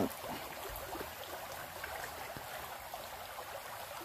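Small shallow stream running over riffles: a steady rush of flowing water.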